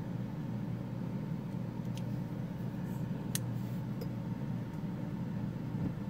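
Steady low hum with a few small sharp metallic clicks, the sharpest about halfway through, from a titanium framelock folding knife as its blade is unlocked and folded shut.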